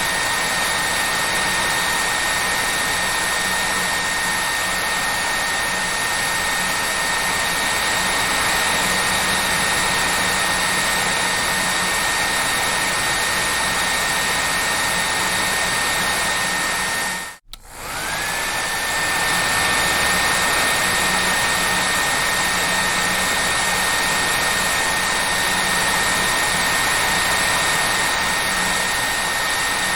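Hair dryer running steadily: an even rushing hiss of air with a high motor whine. About seventeen seconds in it cuts out for an instant, then comes back, the whine rising back up to its pitch.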